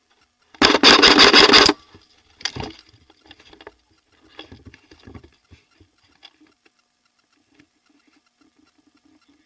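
An airsoft electric gun firing one full-auto burst of about a second, its rapid even shots very loud, followed by softer rustling and scattered knocks of gear and movement.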